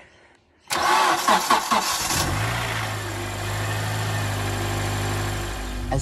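Honda Accord Euro's 2.4-litre i-VTEC four-cylinder engine started for the first time after fitting an Injen short ram intake. The starter cranks for about a second and a half, then the engine catches and settles into a steady fast idle of about 1,500 rpm.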